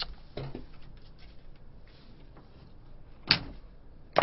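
Knocks and handling noises in a small room: a light click at the start, then two sharp knocks about a second apart near the end.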